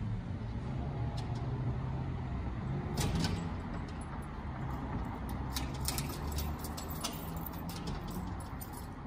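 Metal clinking and rattling at a wrought-iron grille door: a short burst about three seconds in, then a longer spell of clinks from about five and a half to eight seconds. Under it runs a low steady hum of street traffic.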